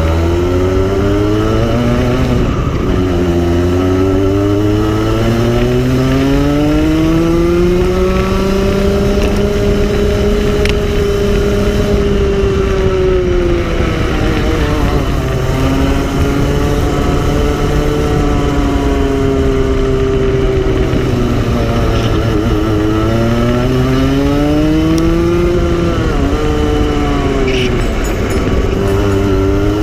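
Go-kart engine heard from the kart itself on a lap, its pitch climbing as it accelerates down the straights and dropping as it slows for the corners. The note rises steadily for about ten seconds, falls, holds level for a while, then drops and climbs again twice near the end.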